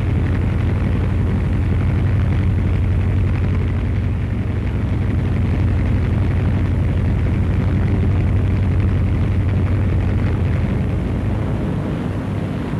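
Aircraft engines droning steadily, a dense low rumble that eases off slightly near the end.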